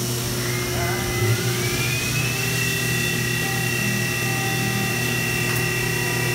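2003 Fadal 4020HT CNC vertical mill running, its spindle whine rising in pitch over the first couple of seconds and then holding steady over a steady low machine hum.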